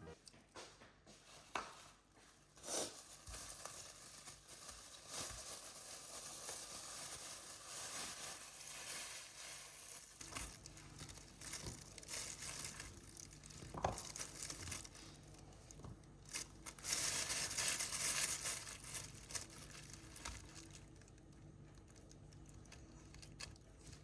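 Crinkling and rustling of wrapping or packaging being handled, with a few light knocks, and a louder stretch of rustling about two-thirds of the way in.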